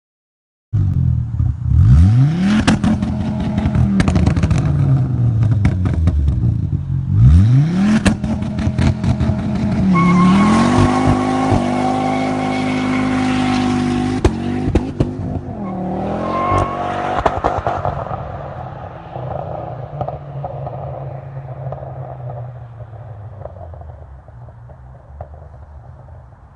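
Remapped Ford Focus ST's 2.5-litre turbocharged five-cylinder engine blipped hard twice, with rapid crackles and pops from the exhaust as the revs fall on overrun. It is then held at a steady high rev against the hard-cut launch-control limiter, popping as it cuts, revs once more, and fades out over the last several seconds.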